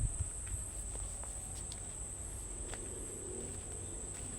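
Insects chirring in a steady, unbroken high-pitched drone, with a few faint ticks and a low rumble underneath.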